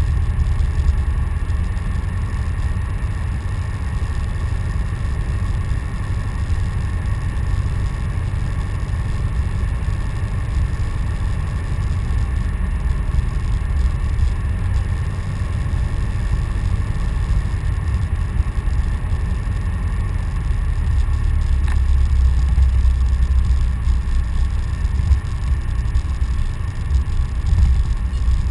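Grumman Tiger's four-cylinder Lycoming engine and propeller droning steadily on landing approach, heard inside the cockpit, with two steady mid-pitched tones over a deep rumble. The low rumble grows stronger about three-quarters of the way through as the plane comes down over the runway.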